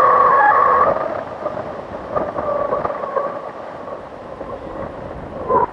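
Wind buffeting the microphone in flight, a rough rumbling rush. A held high tone sounds in the first second and fades, and a short one comes near the end.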